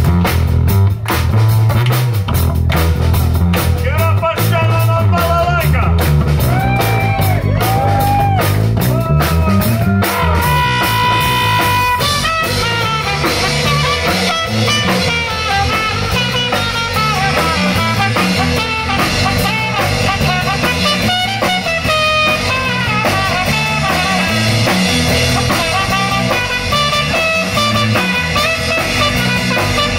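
Live rock band playing: electric bass and drum kit, with dense drum hits for the first dozen seconds, then melody lines over the groove for the rest, the trumpet among them.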